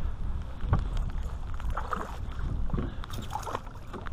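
Wind buffeting the microphone and water slapping against the side of a small fishing boat, with a hooked bass splashing at the surface beside the boat as it is landed by hand, a few short splashes and knocks.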